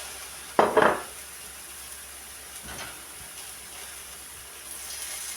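Onions going into hot oil in a pan, with a loud sizzling burst about half a second in, then frying with a steady sizzle that grows a little stronger near the end.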